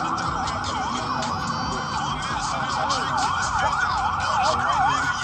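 Emergency vehicle siren in a fast yelp, its pitch sweeping up and down about three times a second.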